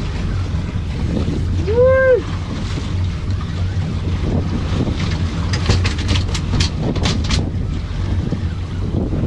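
Wind buffeting the microphone over the steady wash of the sea around a small fishing boat. About two seconds in comes one short pitched call that rises and falls, and around six to seven seconds a quick run of sharp clicks.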